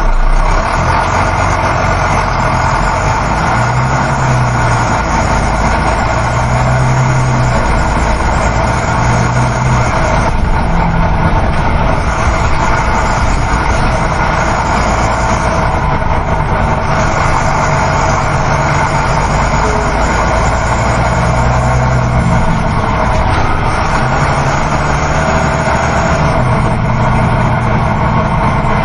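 Coach bus driving, heard from inside the passenger cabin: a steady engine hum mixed with tyre and road noise, with a low hum that swells and fades now and then.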